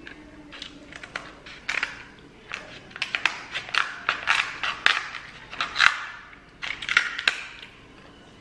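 Seafood shell being cracked and broken apart: a run of irregular crisp crunches and snaps.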